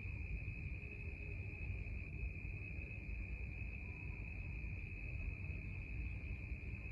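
Night ambience of crickets chirping in a steady, unbroken high trill, over a low rumble.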